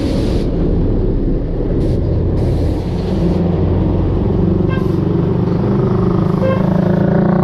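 A truck's engine running steadily close by in slow street traffic, with several short high hisses.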